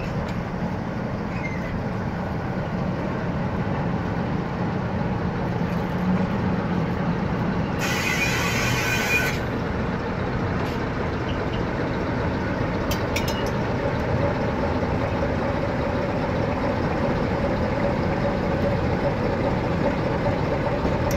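A diesel-electric locomotive's engine running steadily as it hauls a container train slowly past. A short burst of air hiss, typical of the air brakes, comes about eight seconds in.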